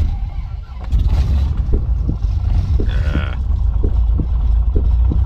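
Piper single-engine propeller airplane's piston engine starting up and settling into a steady, loud low idle, heard from inside the cabin. It catches right at the start and reaches full strength about a second in.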